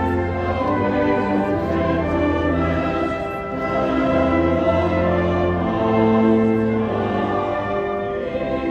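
Slow solemn music of long held chords changing about once a second, with a choir singing over instrumental accompaniment.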